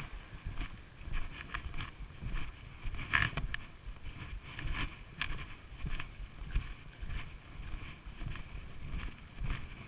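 Footsteps of a person walking on a paved footway, an even step roughly every two-thirds of a second, with jacket rustling and wind rumbling on the microphone.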